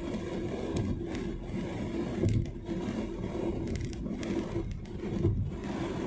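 Road and engine noise heard inside a moving car's cabin: a steady low rumble with a faint hum, scattered light clicks and rattles, and two louder low thumps, about two and five seconds in.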